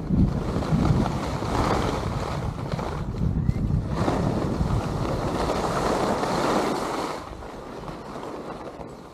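Wind buffeting the microphone, with skis hissing and scraping over groomed snow through the turns of a downhill run. The noise drops away about seven seconds in.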